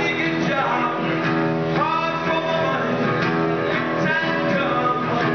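A man singing while playing an acoustic guitar: held guitar chords under a sung melody.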